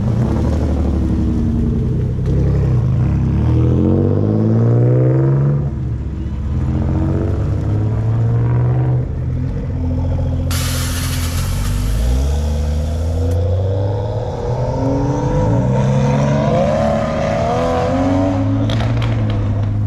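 Several car engines running and revving, their pitch rising and falling as cars pull away. About halfway through, a loud hiss lasts about three seconds.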